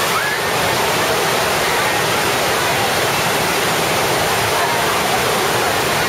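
Waterfall and white-water rapids rushing in a loud, steady roar, with crowd voices and a faint shout near the start.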